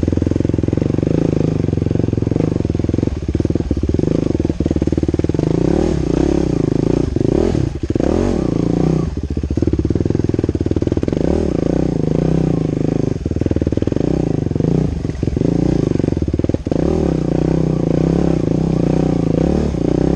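2011 Husqvarna TE 449 single-cylinder four-stroke dirt bike engine running under way, its pitch rising and falling with the throttle. A few sharp knocks and clatter come through as the bike goes over bumps.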